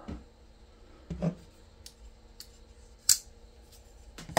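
Folding pocket knives being handled and swapped, giving scattered sharp metallic clicks and taps. There is a louder click about three seconds in and a louder knock at the end.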